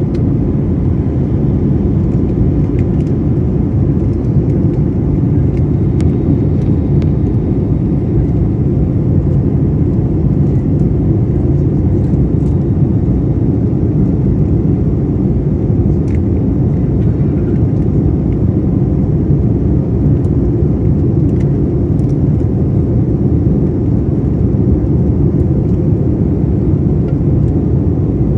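Steady, loud engine and airflow noise heard inside the cabin of an Airbus A320neo in flight after takeoff, a deep even rumble with no changes, with a few faint ticks.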